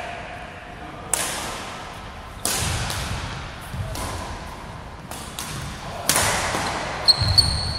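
Badminton racket strings smacking a shuttlecock during a rally: sharp hits about a second apart, each echoing around a large hall. Near the end come short high squeaks, typical of sneakers on a wooden court floor.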